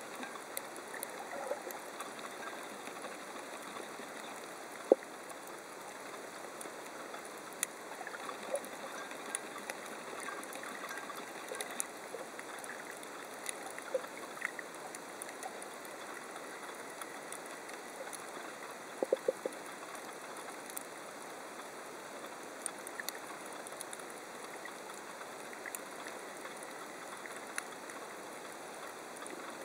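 Underwater coral reef ambience: a steady hiss sprinkled with sharp clicks and snaps. One louder snap comes about five seconds in, and a quick run of four clicks comes a little before the twentieth second.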